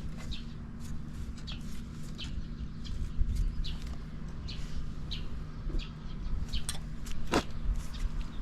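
Small bird chirping, short falling notes repeated about every half second, over a steady low hum.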